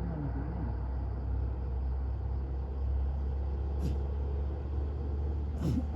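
A bus engine running with a steady low drone. Two short, high hisses come about four seconds in and again near the end.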